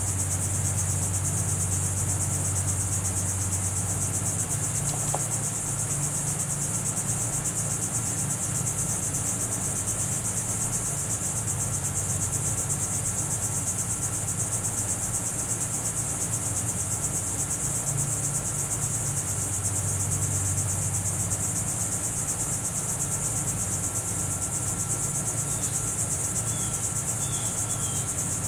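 Steady, continuous high-pitched insect chorus, with a low steady hum underneath and a few short high chirps near the end.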